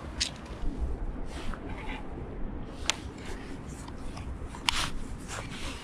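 Fishing gear being handled: a few sharp clicks, the sharpest about three seconds in and again near five seconds, with light rustling over a low rumble.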